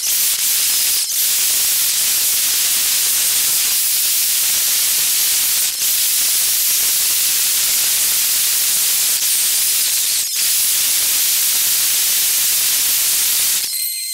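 Motorcycle ride audio, wind and engine noise, sped up by the time-lapse into a steady high hiss. It drops out briefly three times, about one, six and ten seconds in. Near the end the hiss gives way to a few faint steady high tones.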